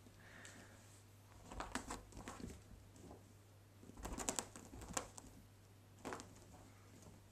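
Kittens playing on a duvet: bursts of rustling fabric, claw scratching and soft thumps as they pounce and scrabble, around two seconds in, again between four and five seconds, and once more near six seconds.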